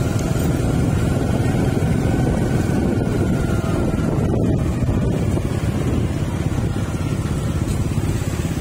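Steady low rumble of road and engine noise from a moving vehicle, with a faint whine that fades out about three seconds in.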